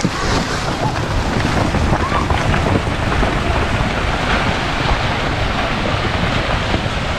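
Strong wind buffeting the microphone, a loud steady rushing noise with heavy low rumble.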